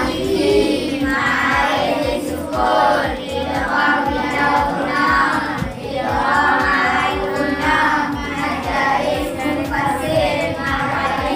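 Children's voices chanting together in a sing-song chorus, naming the tajwid rules one after another, over a steady low beat.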